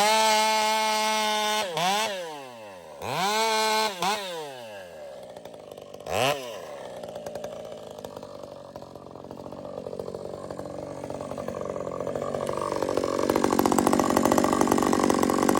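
Ported Husqvarna 562 XP two-stroke chainsaw with an expansion pipe, revved twice to a high, held scream at full throttle with the pitch falling away between, blipped once, then running under load in a cut, rougher and building steadily louder toward the end.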